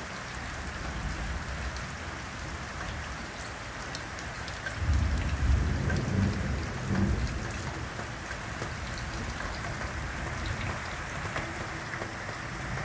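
Steady rain falling, with a deep rumble of thunder rolling in about five seconds in and fading over two or three seconds.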